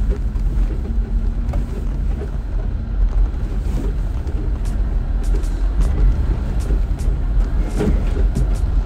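Jeep driving off-road: a heavy, steady low rumble from the vehicle, with irregular sharp clicks and knocks that come more often in the second half.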